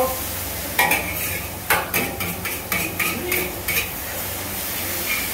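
Metal utensil clanking and scraping against a wok as noodles are stir-fried, with the food sizzling. About eight quick clanks come between one and four seconds in, over a steady low hum.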